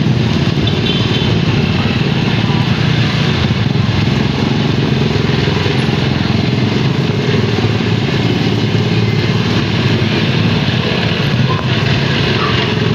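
Motorcycle running steadily while riding on the road, engine and road noise holding at a constant level.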